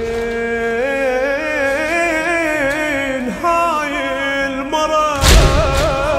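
A male radood singing a slow Arabic mourning chant (latmiya) solo into a microphone, with long, wavering held notes. About five seconds in comes one loud thump as the mourners beat their chests in unison.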